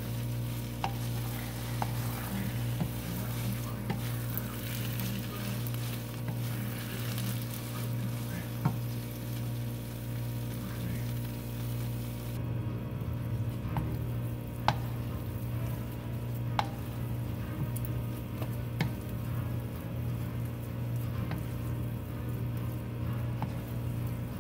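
Slotted wooden spatula stirring and scraping thick, sticky biko (glutinous rice cooked in coconut cream and brown sugar) in a nonstick wok, the mixture sizzling softly as it nears doneness. Now and then the spatula knocks against the pan with a sharp click, over a steady low hum.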